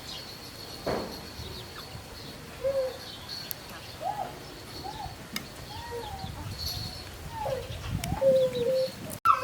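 Birds calling: a series of short, arching calls that come more often toward the end, most likely barnyard fowl.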